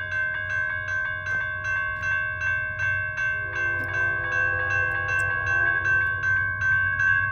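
Railroad grade-crossing warning bell ringing steadily, about two strikes a second, as the crossing signals activate for an approaching train. From about three to six seconds in, the distant train sounds a long horn blast under the bell.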